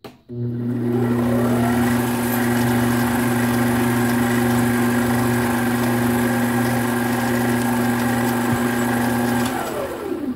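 7x12 mini lathe's motor and gear train spinning up with a rising whine, running at a steady hum while the tool cuts the white plastic stock in the ER32 collet chuck, then switched off and winding down near the end.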